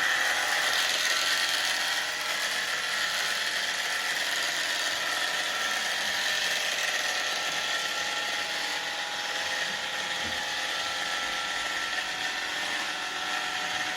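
Small handheld electric tool running steadily with a high whine, used to trim an animal.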